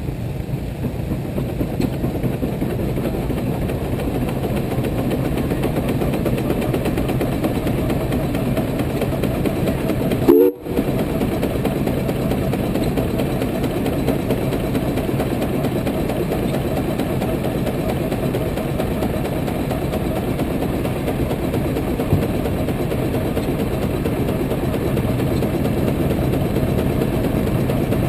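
110 hp Case steam traction engine pulling against a belt-driven brake, its exhaust chuffing from the stack in a steady, even rhythm that builds a little over the first few seconds. The sound cuts out briefly about ten seconds in.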